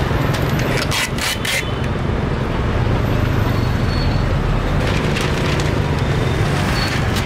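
Busy street-market ambience: a steady rumble of traffic and a crowd's background noise, with a quick run of about four sharp knocks about a second in.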